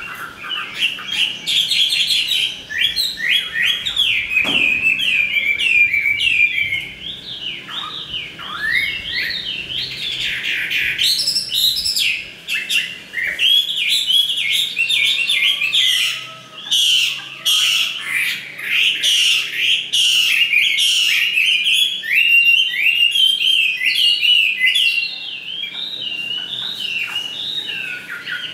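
Chinese hwamei singing a fast, continuous run of varied whistled notes, mixed with sharp clicks; the song eases off near the end.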